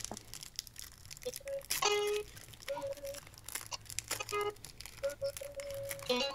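Wrapper of a small pack of baseball cards crinkling and tearing as it is handled and opened by hand, with a faint voice-like sound in the background about two seconds in.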